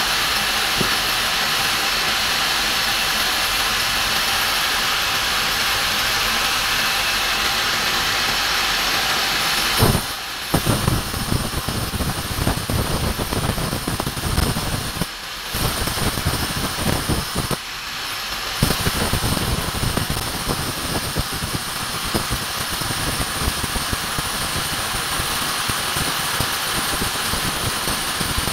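Cordless drill boring into a masonry wall, a loud, steady grinding buzz that stops briefly twice partway through.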